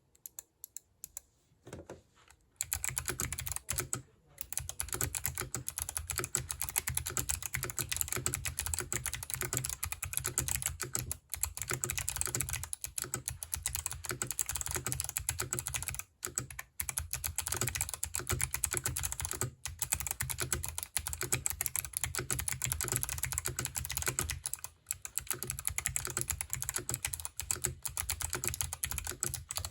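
NK65 mechanical keyboard with clicky switches being typed on fast, a dense run of sharp clicks with a few short pauses. It starts with a few scattered keystrokes before the steady typing picks up about two and a half seconds in.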